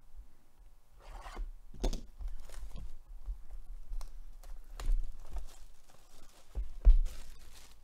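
Plastic shrink wrap being torn and pulled off a sealed cardboard trading-card hobby box, crinkling and rubbing in short strokes, with low bumps of the box being handled. The loudest knock comes about seven seconds in.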